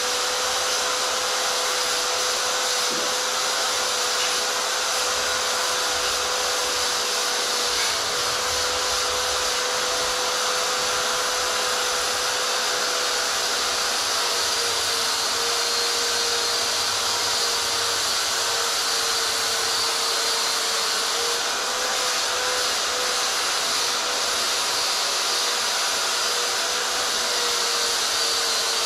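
Electric drill with a wire brush running steadily: a constant motor whine with a hiss.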